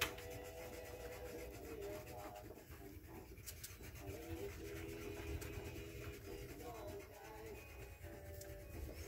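Wax crayon rubbing across paper in quick, repeated short strokes: a soft, steady scratching.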